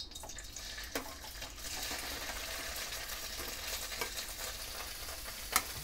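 Paneer cubes sliding into hot oil in a kadhai and sizzling as they fry, the hiss building up about two seconds in. A few sharp knocks of utensils against the pan, the loudest near the end.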